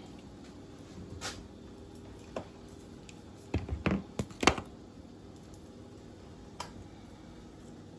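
A few scattered clicks and knocks, with a cluster of sharper ones a little past the middle, over a low steady hum.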